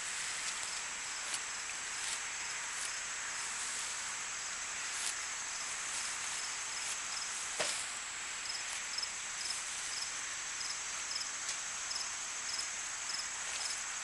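Crickets and other insects chirping steadily in a grassy field: a continuous high trill with a faster pulsed chirp beneath it. There are a few faint clicks, and a single sharper knock a little past halfway.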